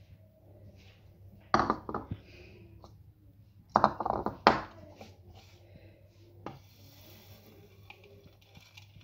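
Ceramic bowls clinking and knocking together as chopped onion is tipped from a small bowl into a larger bowl of mashed potato. The sound comes in two short clusters of sharp knocks about two seconds apart, with one lighter tap later.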